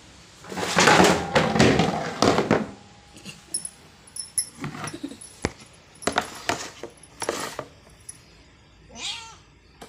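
Loud rustling and scuffling for about two seconds, then scattered light knocks and rustles as a ginger cat moves about and plays with a jute rope. Near the end comes one short meow that rises in pitch.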